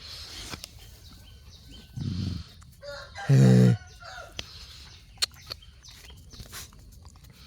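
One loud animal call of about half a second, a little past three seconds in, after a shorter, lower sound about two seconds in.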